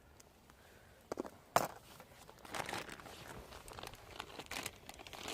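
Crinkling and rustling of a food wrapper being handled, in irregular crackles, with one sharper click about a second and a half in.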